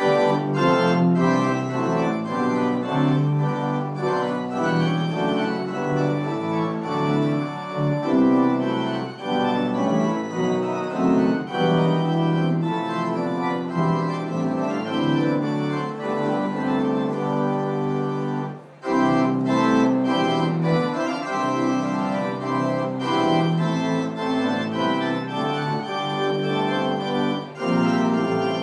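Church organ playing sustained chords, the postlude after the dismissal, with a brief break between phrases about nineteen seconds in.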